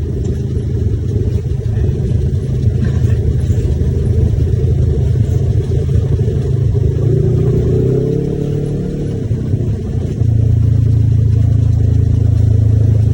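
Side-by-side UTV's engine running under way, its pitch shifting up and down a little past halfway, then running louder and steadier for the last few seconds.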